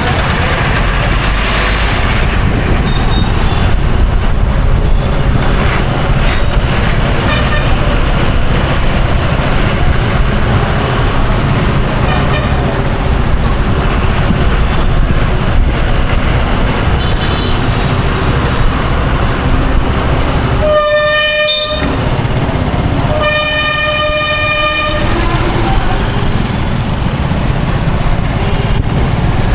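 Dense road traffic on a busy Indian road: a continuous rumble of engines and tyres, with a few faint distant horn toots. About two-thirds of the way through, a nearby vehicle horn sounds twice, a short blast and then a longer one lasting about two seconds.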